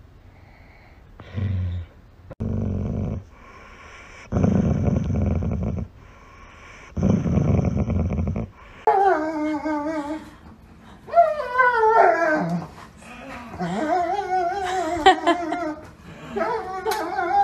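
A golden retriever growling in four low grumbles over the first eight seconds or so. Then a dog whining in long calls that rise and fall in pitch.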